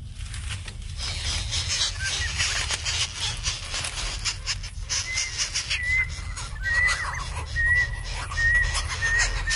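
Greater coucal chicks begging in the nest with rapid, raspy pulsing calls as an adult comes to feed them. In the second half, short thin whistled bird notes repeat about once a second over a low rumble.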